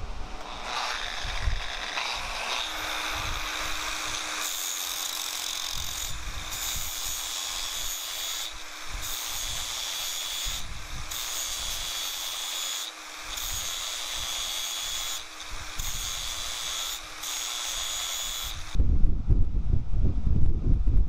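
Angle grinder with a flap disc grinding the end of a steel crowbar, a steady high whine and grinding hiss with brief dips about every two seconds as the disc is lifted off the steel. It stops abruptly near the end, giving way to a louder low rushing noise.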